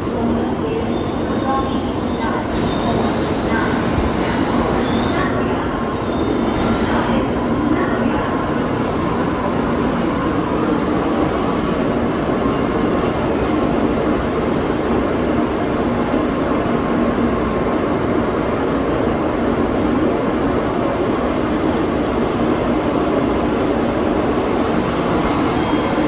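A Tokaido Shinkansen train alongside the platform: a steady rumble and hum of wheels and equipment, with a brighter hiss for the first several seconds.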